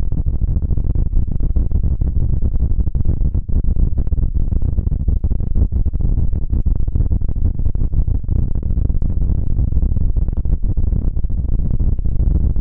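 A loud, steady, muffled low noise drone with rapid flickering dropouts, an experimental noise soundtrack rather than any one sound from the scene.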